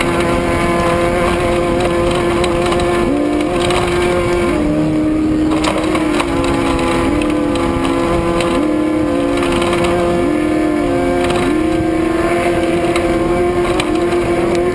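Off-road race vehicle's engine running hard at steady high revs, loud and constant, with a second pitch stepping up and down every second or so.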